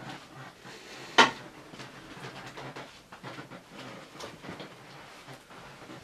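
Small clicks, knocks and clatter of things being handled in a small room, with one sharp knock about a second in.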